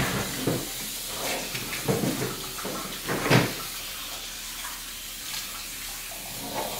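Cold tap water running from a kitchen faucet into a stainless steel bowl while raw chicken pieces are rinsed and turned by hand. A few brief louder moments come about two and three seconds in.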